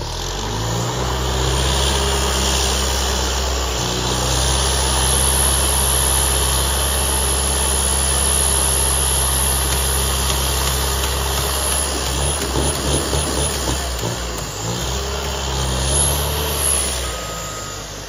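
Genie GTH-1056 telehandler's diesel engine revving up and running hard as the machine manoeuvres in the snow. About two thirds of the way through it goes uneven and pulsing for a couple of seconds, then settles and drops back near the end.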